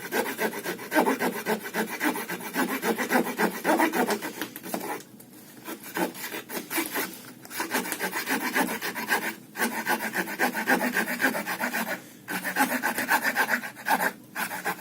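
Pocket-knife wood saw blade of a Victorinox Outrider Swiss Army knife sawing through a log: fast back-and-forth rasping strokes, broken by a few brief pauses.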